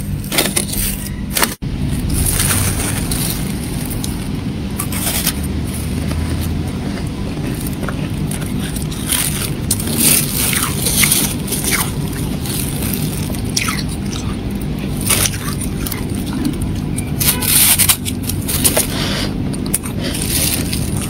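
Fingers scraping and breaking up thick freezer frost: a long run of irregular crunchy scrapes and crackles over a steady low hum.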